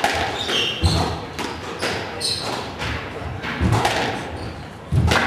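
Squash rally: the ball thuds off rackets and the court walls about once a second, with short squeaks of players' shoes on the wooden floor between the hits.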